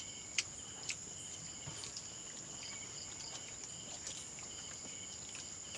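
Crickets chirring in a steady, high-pitched drone, with a couple of faint clicks in the first second.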